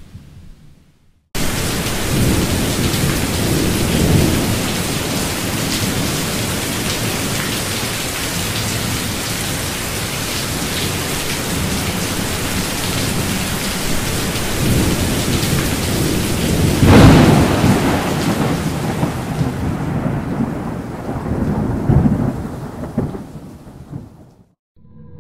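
Thunderstorm: steady heavy rain that starts suddenly about a second in, with rolls of thunder swelling through it, the loudest about two-thirds of the way through and another a few seconds later. The storm fades out just before the end.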